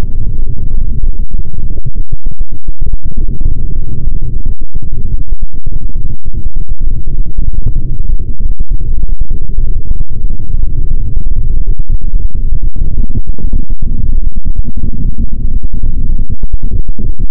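Loud, distorted low rumbling electronic noise, broken by many brief dropouts.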